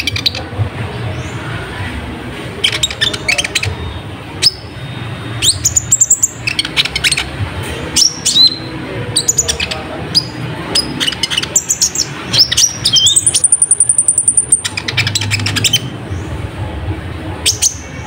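Kolibri ninja sunbird singing energetically: bursts of rapid, high chattering chips and short thin rising whistles, with a long high, even trill about thirteen seconds in.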